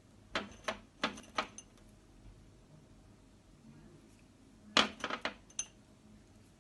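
Dried cloves dropped one at a time into a small dish, each landing with a sharp clink. There is a quick run of about five clinks at the start and another run of about five nearly five seconds in.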